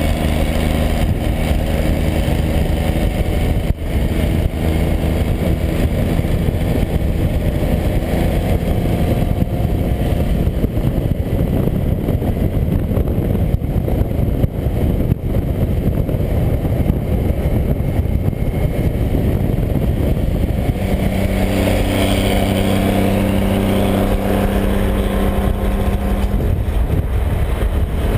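Vehicle engine droning steadily under wind and tyre noise at highway speed. About three quarters of the way through, the engine hum becomes stronger and steadier.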